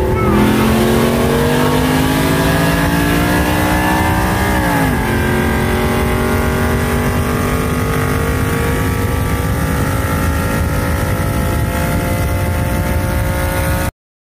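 Modified V8 pickup engines at full throttle in a roll race from 60 mph. The revs climb steadily, drop sharply at an upshift about five seconds in, then climb again, and the sound cuts off abruptly near the end.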